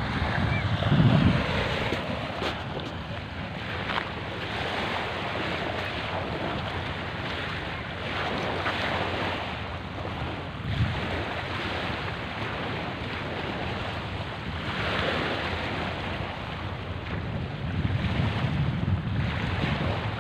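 Small waves washing onto a sandy shore, swelling and easing every few seconds, with wind buffeting the microphone.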